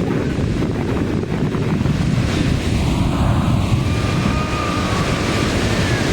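Rushing river water with wind buffeting the microphone, a loud, steady noise.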